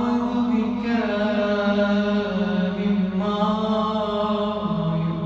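A man's solo voice chanting an Arabic Ramadan supplication (du'a) in a slow melodic style. He draws out long, sustained notes that step down in pitch, dropping lower near the end.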